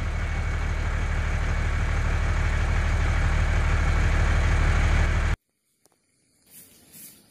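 Truck engine sound, running steadily with a deep hum and growing slowly louder, as the toy dump truck comes closer; it cuts off abruptly about five seconds in, leaving near silence with faint scrapes near the end.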